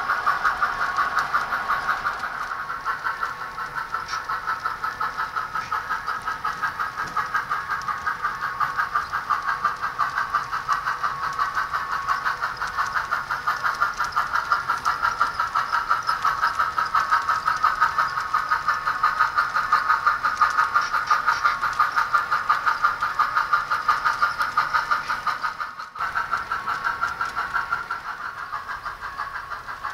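Soundtraxx Tsunami DCC sound decoder in an HO brass N&W K1 steam locomotive model, playing a steady, even rhythm of steam exhaust chuffs through the model's small speaker. The chuffing breaks off briefly near the end and then carries on.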